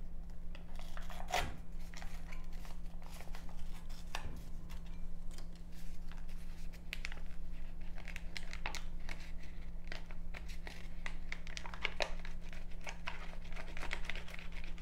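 Small paper brownie-mix pouch being torn open and crinkled by hand, a long run of small crackles and rips.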